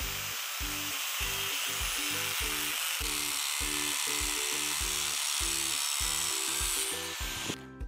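Angle grinder with a cutoff wheel cutting through a steel hinge held in a vise, a steady hiss that stops suddenly near the end. Background music with a steady beat plays underneath.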